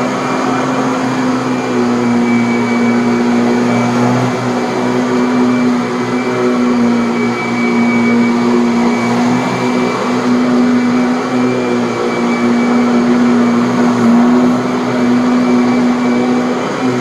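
Kirby Avalir vacuum running steadily, its motor hum wavering slightly in pitch, as it cleans a pillow-top mattress with the agitator brush spinning and the self-propelled tech drive engaged.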